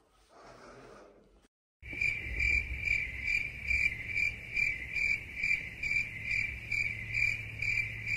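Rhythmic high-pitched chirping, about two chirps a second, over a low steady hum. It starts abruptly about two seconds in, after a brief moment of total silence.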